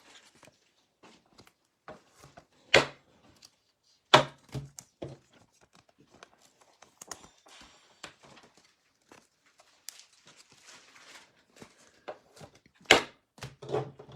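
Trading cards being handled and set down on a table: scattered light clicks and rustles, with a few sharper knocks, about 3, 4 and 13 seconds in.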